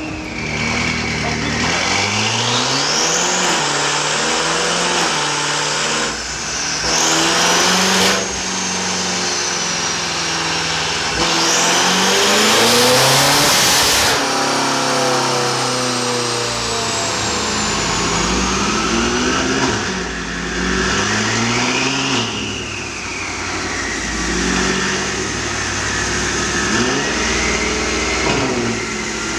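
BMW F10 M5's twin-turbo V8 revving hard on a chassis dynamometer, the rear wheels spinning on the rollers as the engine climbs in pitch in several sweeps through the gears. It is loudest about halfway through, then winds down in pitch and is revved up again a few more times near the end.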